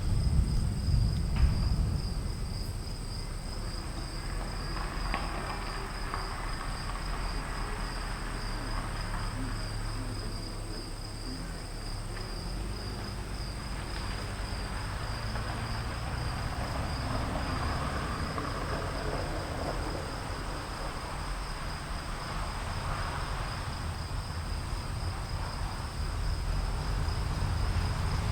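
Afternoon thunderstorm ambience: distant thunder rumbles low, loudest in the first two seconds. Under it runs a steady, high-pitched insect chorus.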